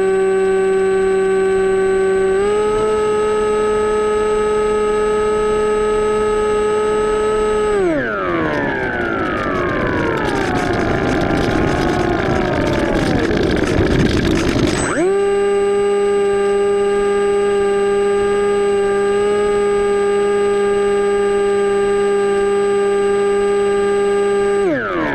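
Electric motor and propeller of an AXN Floater-Jet model plane whining at a steady pitch, stepping up slightly about two seconds in. About eight seconds in the throttle comes off: the pitch slides down and a rush of air takes over until the motor spools back up to speed, then it winds down again near the end.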